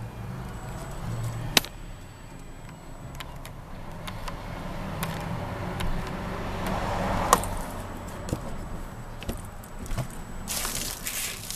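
Scattered clicks and light rattles from handling the cabin fittings of a 1994 Cadillac DeVille, over a steady low hum. The sharpest click comes about seven seconds in as a finger presses the dome light, and a brief hiss follows near the end.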